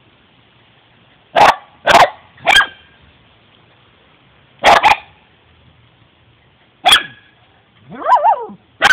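Small dogs barking at a turtle in short, sharp barks, about six of them with gaps between, one a quick double bark. Near the end comes a brief wavering whine.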